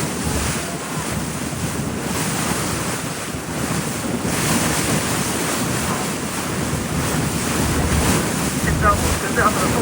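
Wind buffeting the microphone over the steady rush of sea water around a moving tour boat.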